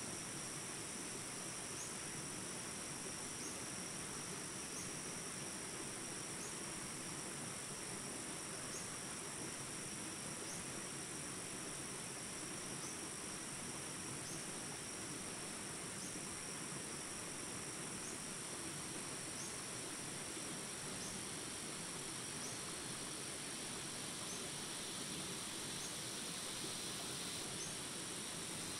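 A steady chorus of insects, a continuous high-pitched drone, with a short rising chirp about every two seconds over an even rural background hiss.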